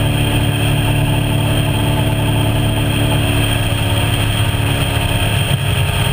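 Small motorboat's engine running steadily at cruising speed, holding one even pitch, over a constant rush of wind and water.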